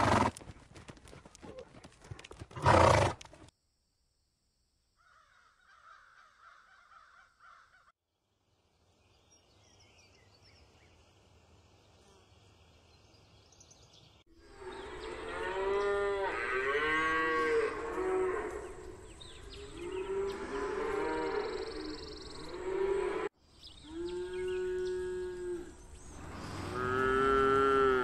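Highland cattle calf mooing in a string of bending, high-pitched calls through the second half, with two longer separate calls near the end. Earlier there is one short loud burst about three seconds in, followed by a stretch of near silence and faint sounds.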